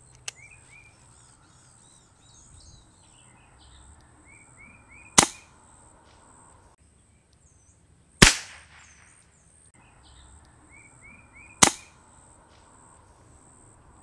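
Three shots from a Brocock Atomic XR .22 regulated PCP air pistol fitted with a 0dB moderator, each a short sharp crack about three seconds apart; the middle shot rings on longer than the other two.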